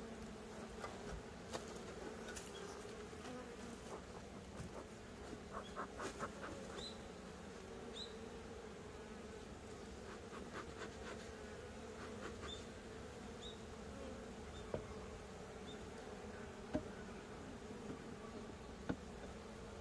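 Honeybees buzzing around a wooden hive box, a faint steady hum, with scattered light clicks and a few short high chirps.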